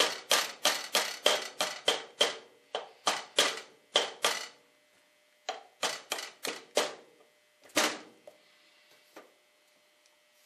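Brass hammer tapping a brass punch to drive the barrel pin out of an 1851 Colt Navy replica revolver's frame: sharp metallic taps with a slight ring, about three a second. They come in a quick run, pause about four and a half seconds in, resume for a shorter run, then thin out to a few spaced, weaker taps.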